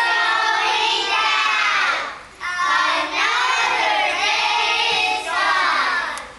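A group of young children singing together, in two long phrases with a short break for breath about two seconds in.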